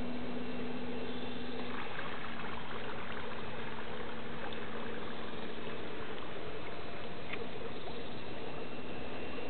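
Electric motors of a 1:40 scale radio-controlled Wiesel-class patrol boat model running with a steady whine, over a rushing of water from its wake. The whine weakens about two seconds in.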